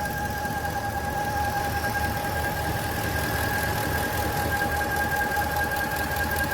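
Turbo-diesel truck engine running with a steady high-pitched whistle over its low rumble. The owner traces the whistle to an incorrect, hollow PCV valve that has no valve inside it.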